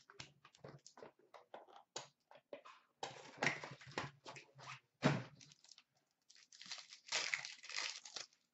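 Foil trading-card pack wrappers and packs crinkling and rustling as they are handled and torn open, in irregular crackling bursts. The loudest stretches come about three to five seconds in and again around seven to eight seconds.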